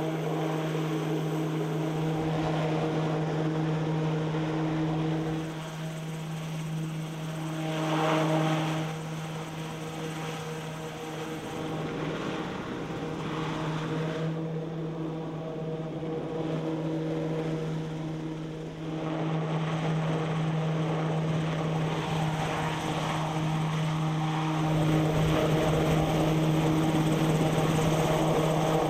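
Piasecki X-49A SpeedHawk twin-engined compound helicopter in flight: its rotor and ducted tail propeller give a steady hum of unchanging pitch. It grows louder about eight seconds in and again near the end.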